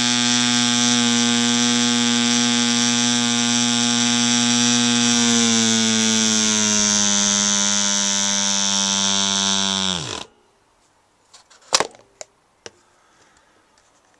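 PAW 80 BR C 0.8cc ball-raced, Schnuerle-ported model diesel engine running steadily with its propeller. From about five seconds in its speed gradually sags, then falls away sharply and the engine stops about ten seconds in. A few sharp clicks follow.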